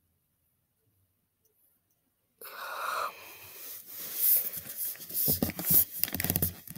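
Close breathy noise starting about two and a half seconds in, followed by rustling and a rapid run of knocks and bumps from hands moving right at the microphone.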